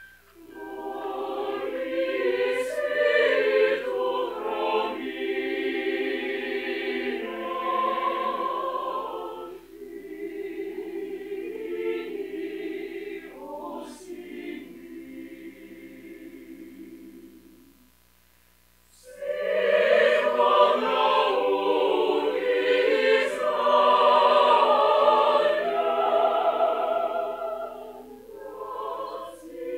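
Mixed choir of men's and women's voices singing a Ukrainian hymn in full voice, growing softer for a stretch in the middle, breaking off in a short pause about eighteen seconds in, then coming back in loud.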